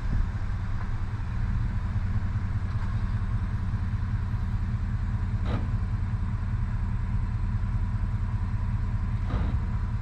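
Vehicle engine running with a low, steady rumble as it rolls slowly, heard from inside the vehicle, with two faint clicks about five and nine seconds in.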